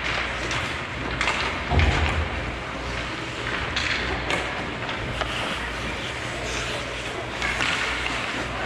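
Ice hockey play on a rink: skates scraping the ice and scattered clacks of sticks and puck, with a heavier thud about two seconds in, over a steady low hum.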